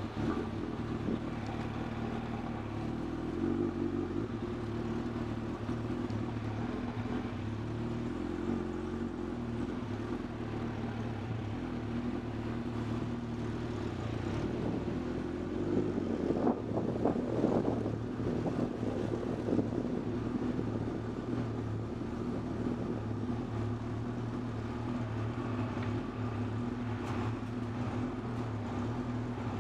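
Motorcycle engine running at low speed, heard from the bike itself, a steady note that swells briefly about halfway through as the bike pulls away a little harder.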